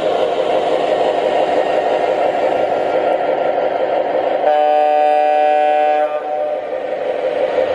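MTH Premier Mark Twain Zephyr O gauge model train running on three-rail track with a steady rumble, its Proto-Sound 2.0 horn sounding once for about a second and a half, about four and a half seconds in.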